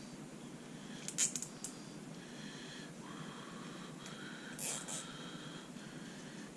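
Two brief rasping sounds, about a second in and again near five seconds, from a restraint being fastened around the wrists.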